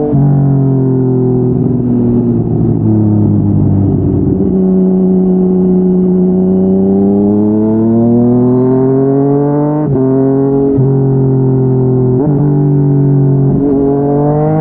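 Yamaha MT-09's three-cylinder engine running through a Yoshimura R55 slip-on exhaust under way. The revs fall away, then climb steadily, and the engine upshifts four times in quick succession, each shift a sudden drop in pitch followed by a short rise.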